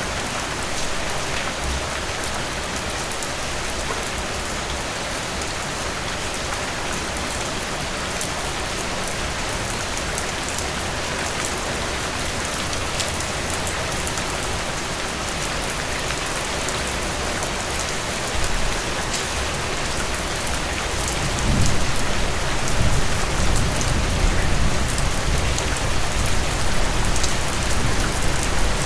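Heavy rain falling steadily, a dense even hiss. About two-thirds of the way through, a low rumble of thunder comes in and rolls on under the rain.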